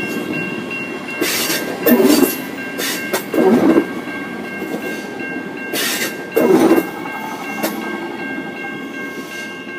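Adelaide Metro 4000-class electric multiple unit rolling slowly past at close range as it pulls away, its wheels clunking loudly three times as bogies cross a rail joint. A rumble and a steady high whine run underneath.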